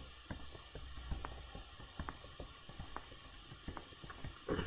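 Faint, irregular small clicks and taps of a pen stylus on a graphics tablet while lines are sketched, over a low steady hum.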